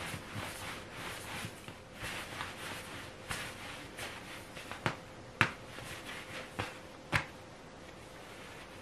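Hands rolling soft bread dough on a wooden board, a dry rubbing and brushing of palms over the wood. Past the middle come four sharp taps on the board, the loudest about five and a half seconds in, before it goes quiet.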